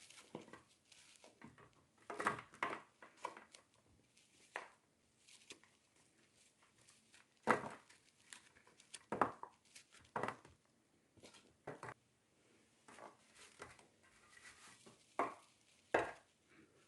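Irregular light clicks and knocks of kitchen utensils and containers being handled during food preparation.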